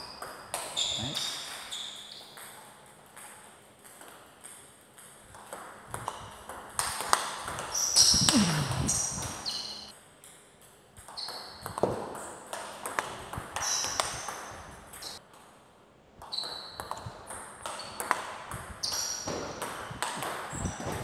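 Table tennis rallies: the ball clicking off bats and table in quick strokes with short high pings, in several runs separated by short pauses.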